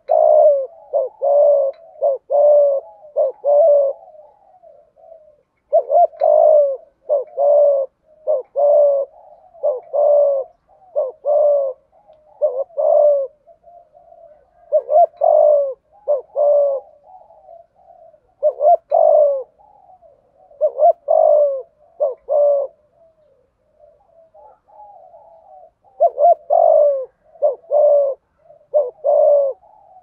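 Male spotted dove cooing in its advertising call. Phrases of three to five low coos repeat in bouts a few seconds apart, with softer cooing murmured between the bouts.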